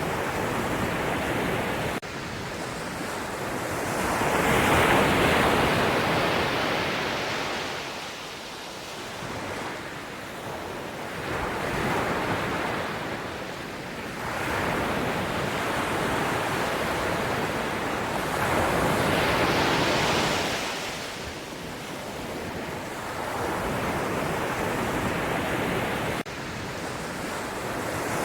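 Ocean waves breaking and washing back, swelling to a rush about every seven or eight seconds, three times.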